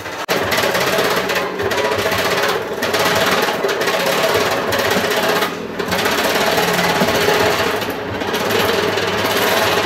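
A power tool running steadily with a rapid mechanical chatter, easing off briefly about five times.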